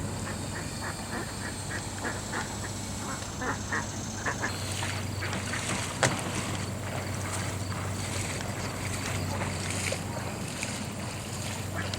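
Ducks quacking in a quick run of short calls, which thin out after about four seconds, over a steady low hum. A single sharp knock comes about six seconds in.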